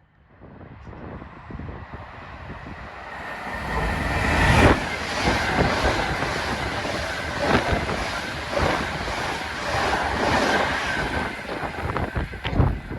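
Avanti West Coast Class 390 Pendolino electric train passing through, its rush building over the first few seconds and then staying loud, with repeated clacks from the wheels. Wind from the train's passing buffets the microphone.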